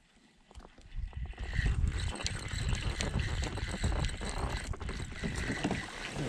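Wind and water noise around a kayak, with many small knocks and clicks, starting about a second in after a near-silent moment.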